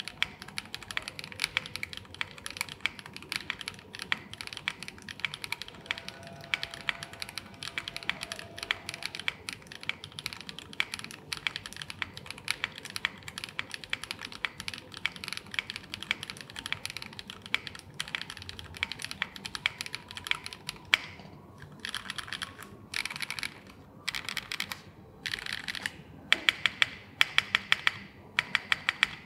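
Coder 66 full-aluminium mechanical keyboard being typed on: a fast, continuous run of keystrokes, then from about two-thirds of the way through, bursts of typing broken by short pauses, with a few louder single key strikes near the end.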